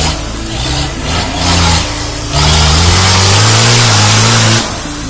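Land Rover Defender's engine revving hard as it pushes through deep mud ruts. The engine note rises and is loudest from about halfway in, then drops back shortly before the end.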